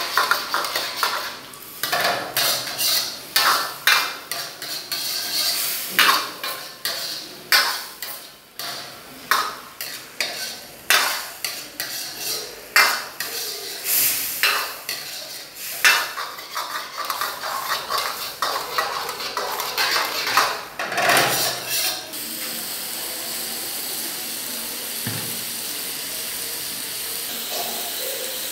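Metal ladle clanking and scraping against a steel wok during a stir-fry, in irregular strikes often a second or less apart. About three-quarters of the way through, the clatter stops and a steady hiss remains.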